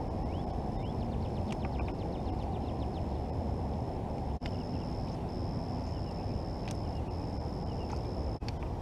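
Outdoor ambience: a steady low rumble of wind on the microphone, birds chirping, and a steady high-pitched insect drone that breaks off briefly now and then. A rapid run of clicks comes from about one and a half to three seconds in.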